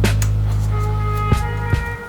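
Background music with a held low bass, sustained higher notes and a few sharp drum hits.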